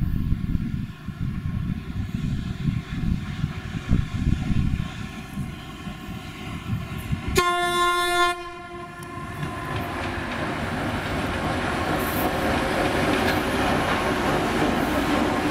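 A twin-section 2TE116U diesel locomotive hauling a freight train runs with a low rumble as it approaches. About halfway through it gives one horn blast about a second long that starts and stops sharply. Then the rolling noise of wheels on rails grows louder as the locomotive and its hopper wagons pass.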